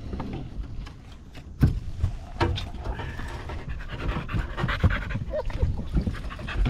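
A dog panting in the boat, with several sharp knocks, the loudest about a second and a half in.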